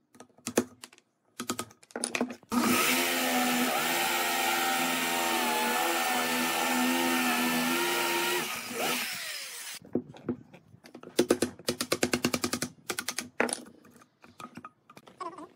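Corded electric drill with a hole saw boring into a wooden post: the motor runs loud and steady for about six seconds, its pitch wavering slightly under load, then winds down. Before and after it, a run of sharp clicks and taps of a chisel working waste out of the hole.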